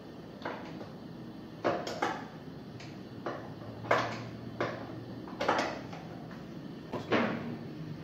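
Irregular sharp metallic clinks and knocks from a hand tool working the water-pump mounting bolts on the underside of a Maytag washer, about ten strokes, the loudest about four and seven seconds in. The bolts are being snugged up after the pump belt was tensioned, without being overtightened.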